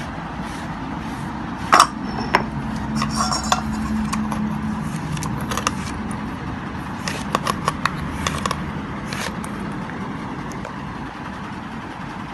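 Ground spice paste being scraped by hand off a stone grinding slab and gathered into a steel bowl: scattered scrapes, clicks and clinks of the steel bowl, with a louder knock about two seconds in, over a steady low background hum.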